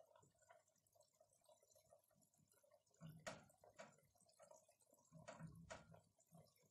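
Near silence, with a few faint soft wet taps from a pot of tomato sauce, in two pairs a couple of seconds apart.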